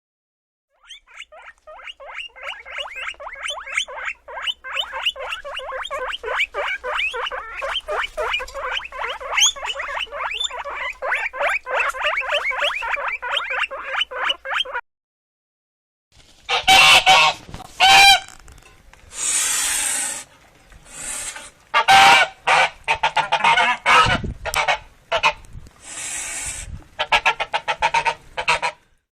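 Domestic fowl calling, two separate recordings. First a dense run of rapid, many-voiced calls lasts about fourteen seconds and cuts off. After a short gap comes a louder series of separate harsh calls and noisy bursts.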